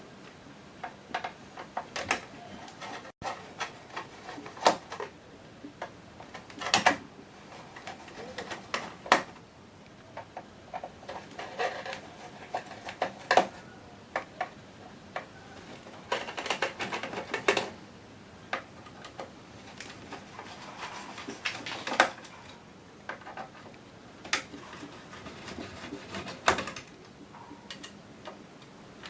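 Long hand screwdriver undoing screws in the metal rack of an autopilot computer: irregular clicks, ticks and sharp metal knocks, with short stretches of scraping as the screws turn out.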